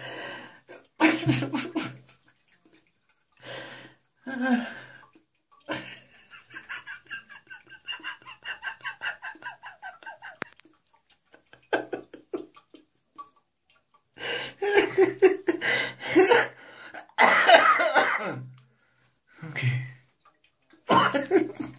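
A man coughing and laughing in bursts, with a run of rapid, even pulses in the middle and short silent gaps between the fits.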